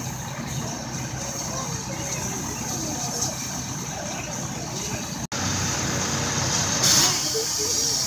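A fired-up steam locomotive giving a steady hiss and rumble, with a short, louder hiss of steam about seven seconds in, over faint crowd voices.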